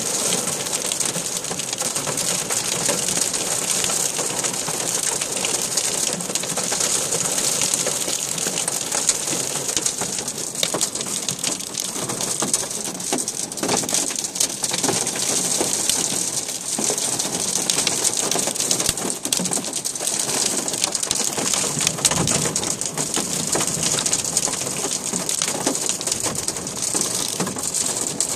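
Heavy rain pouring down onto a street and pavement, a dense steady hiss with scattered spattering drops.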